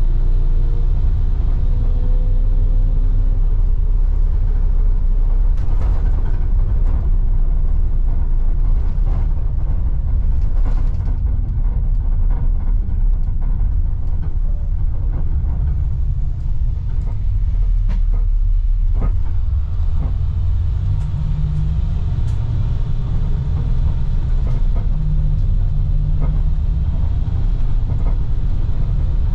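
Interior of a 2010 IC FE300 school bus heard from the rear seats while driving: a steady low rumble from its MaxxForce DT inline-six turbodiesel and the road, with scattered knocks and rattles from the bus body over bumps.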